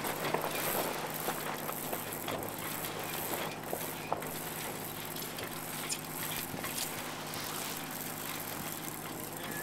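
Sailboat under way: a steady rush of wind and water along the hull, with a low steady hum underneath and a few faint clicks.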